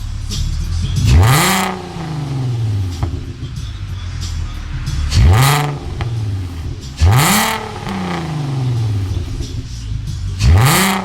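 Volkswagen R32's VR6 engine through an aftermarket sport exhaust, idling with a low burble and blipped four times: each rev climbs sharply and falls back more slowly to idle.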